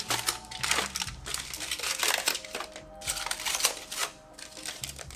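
Rapid, irregular crisp crackling and clicking: food and tableware being handled, as toasted garlic pita bread is picked up. Faint background music runs underneath.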